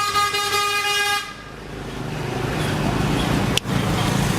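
A vehicle horn sounding one long steady note that cuts off about a second in, then a steady background rumble with a single sharp click near the end.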